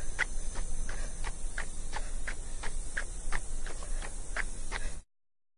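Jogging footsteps on a road in a steady rhythm of about three steps a second, cutting off abruptly about five seconds in.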